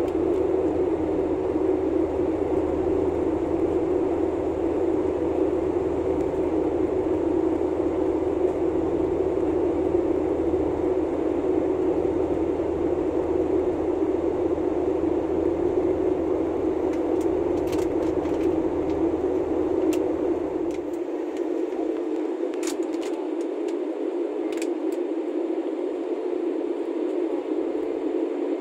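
Steady roar of an Airbus A320's jet engines heard inside the passenger cabin during the descent. Its deep low rumble drops away suddenly about two-thirds of the way through, leaving the steady mid-pitched roar, with a few faint clicks near the end.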